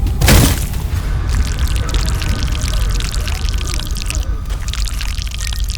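Volcano eruption sound effect: a loud burst just after the start, then a continuous deep rumble with a dense crackling, gushing hiss.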